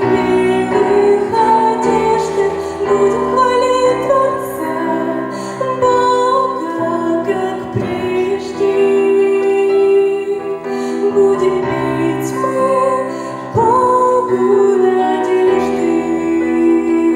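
A woman singing a slow, tender song with vibrato over instrumental backing, a new phrase starting after a brief dip about three-quarters of the way through.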